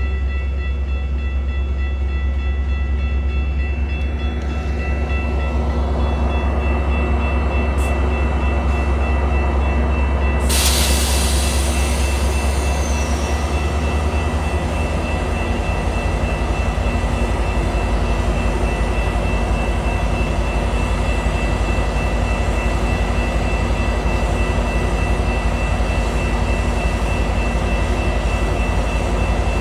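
Metra commuter train standing at the platform with its diesel locomotive running, a loud steady low hum. About ten seconds in, a sudden hiss, and from about fifteen seconds the low hum turns into an even pulsing as the train gets moving.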